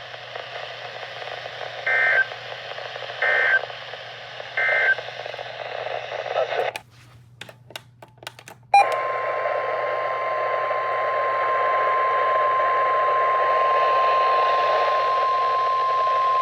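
NOAA Weather Radio between warnings: three short bursts of SAME digital data tones over hissing static, a couple of seconds of crackling dropout, then the steady single-pitch 1050 Hz warning alarm tone, which signals that a warning message follows.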